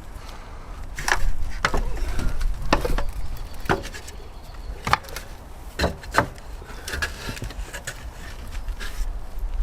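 Irregular sharp knocks and clacks of plastering work up a ladder, about seven in several seconds, as tools and render are handled.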